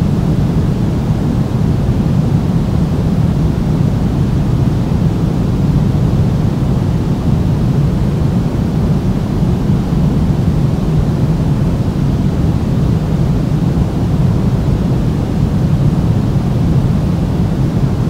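Steady pink noise played as a sleep sound, an even hiss weighted heavily toward the low end.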